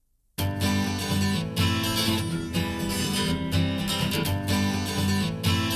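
Music: after a moment of silence, an acoustic song starts about half a second in with strummed acoustic guitar.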